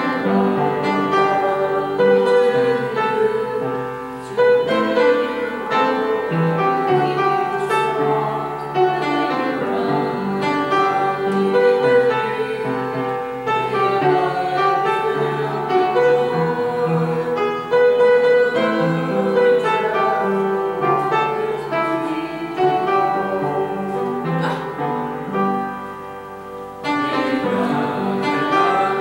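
Congregation singing a hymn with piano accompaniment.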